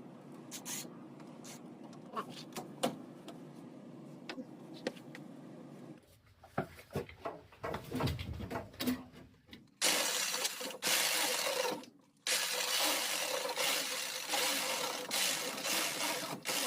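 Plastic drain fittings being handled and unscrewed, with scattered light clicks and knocks. About ten seconds in, a steady rush of water starts splashing out of the disconnected P-trap and goes on with a brief break.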